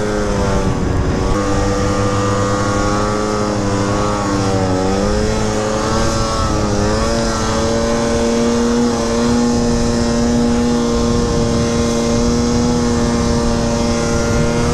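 Snowmobile engine running hard at high, fairly steady revs while climbing through snow, the pitch wavering and dipping briefly around four to seven seconds in before settling again. A steady rush of track and wind noise runs underneath.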